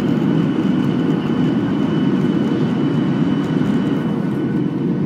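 Boeing 737-800 cabin noise on the landing approach, heard from a window seat: a loud, steady rush of airflow and CFM56 engine noise with a faint, steady high whine.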